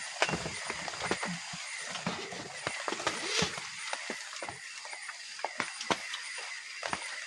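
Irregular sharp clicks and knocks, like wood or objects being handled, over a steady background of night insects chirping in a quick repeating pattern.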